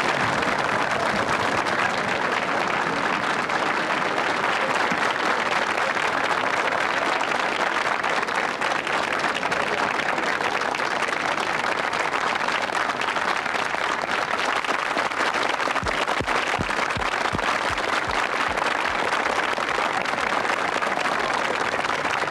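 A large studio audience applauding in one long, steady round.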